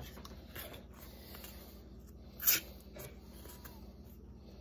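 Homemade kitchen knife blade slicing through a sheet of paper in a sharpness test, heard as one brief scratchy swish about two and a half seconds in, with faint ticks of the paper being handled.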